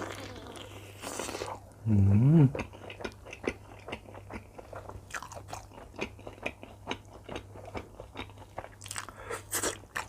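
Close-miked crunchy chewing and biting of food, a dense run of small crunches. About two seconds in, a short loud hummed "mmm" with a wavering pitch.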